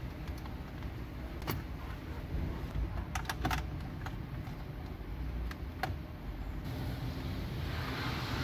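A few sharp clicks and taps, over a low steady rumble, with a hiss swelling near the end.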